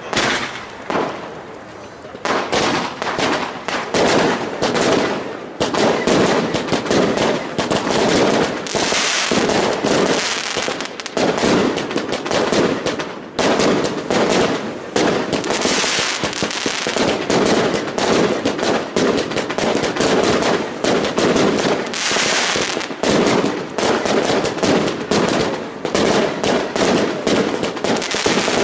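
Aerial fireworks bursting in rapid succession: a dense, loud barrage of bangs and crackling that builds after a brief lull about a second in.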